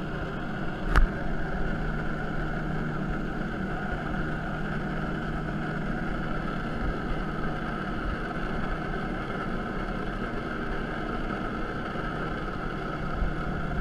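Jet ski engine running steadily at the throttle, its jet pump driving water through the hose to a hydro-flight board, with a steady hum under the water and wind noise. A single sharp click about a second in.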